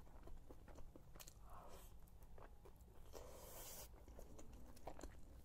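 Faint, close-miked chewing of a mouthful of shawarma, with small wet mouth clicks and a brief breathy hiss a little after three seconds in.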